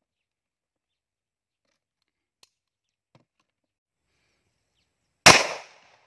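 A single pistol shot about five seconds in, sharp and loud, with a short ringing tail. Before it, only a couple of faint clicks.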